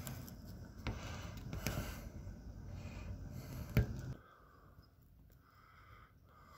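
Heavy rain falling, with a low rumble and a few sharp taps at the microphone for about four seconds. About four seconds in it drops abruptly to a quieter, steady rain hiss.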